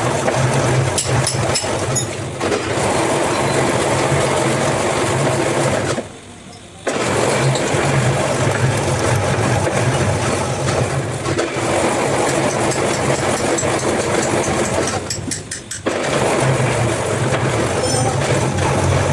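A motor-driven workshop machine running steadily with a low hum. It cuts out abruptly for under a second about six seconds in, and dips briefly again near the fifteen-second mark.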